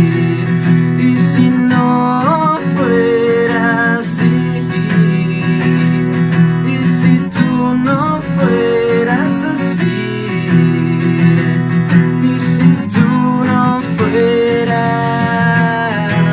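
Live song: an acoustic guitar strummed with a man singing over it and an electric bass underneath.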